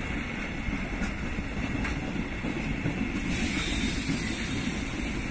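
Container freight wagons rolling past on the rails: a steady rumble of wheels on track with a few faint clicks.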